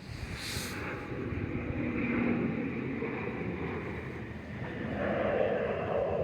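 Strong wind gusting and buffeting the microphone, a rushing noise that swells and eases and grows louder toward the end.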